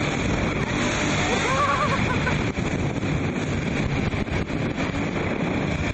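Speedboat running through river rapids: a steady rush of water and engine noise, with heavy wind buffeting on the microphone.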